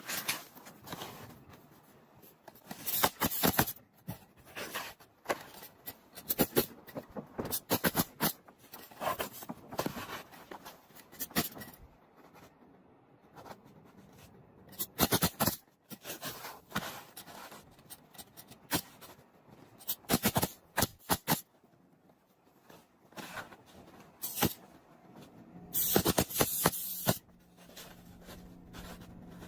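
Pneumatic roofing nail gun firing sharp shots in irregular clusters, with asphalt shingles scraping and being handled in between.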